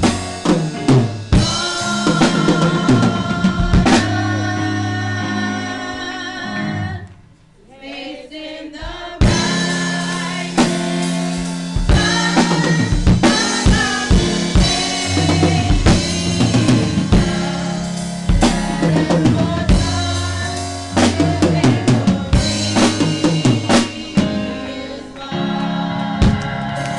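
Music with a drum kit, bass and sustained pitched instruments playing a steady beat; it drops away briefly about seven seconds in, then comes back in full.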